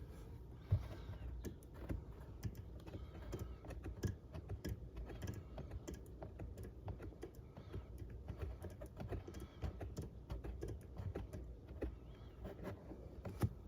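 Scattered, irregular light clicks and knocks of metal hand tools being handled, with one sharper click about a second in.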